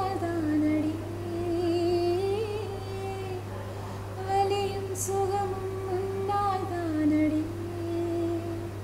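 A woman singing a slow melody in long held notes with vibrato, her voice gliding between pitches.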